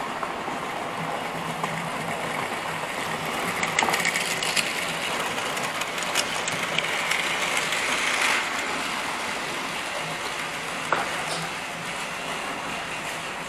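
Model freight train with tank wagons running on the layout track: a steady running rumble with clicks from the wheels on the rails, louder as it passes close by from about four to eight seconds in.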